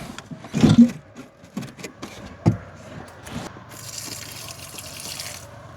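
Knocks and creaks as a plastic gray-water drain pipe under a truck camper is worked loose. Then residual shower water pours out of the opened pipe and splashes for about a second and a half near the end.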